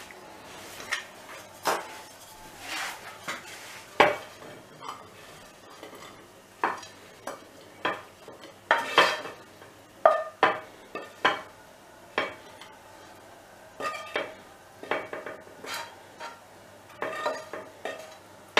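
Wooden spoon and frying pan clattering as cooked beef cubes are scraped out of the pan into a glass dish: irregular scrapes and knocks, the sharpest about four seconds in.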